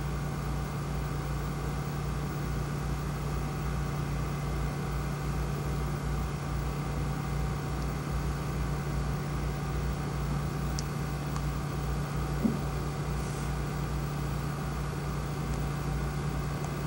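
Steady low background hum of machinery, with a couple of faint ticks near the middle.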